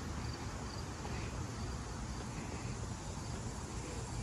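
Steady outdoor background: a continuous high insect drone from the trees over a low rumble.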